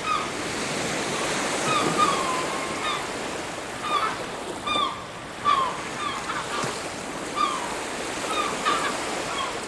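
Surf washing steadily on a beach, with birds calling over it in a string of short, slightly falling cries, about one a second.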